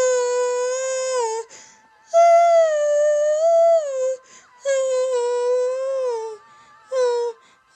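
A girl singing long held wordless vowel notes, solo. There are four phrases with short breaths between them; the second is pitched higher, and most end in a falling slide.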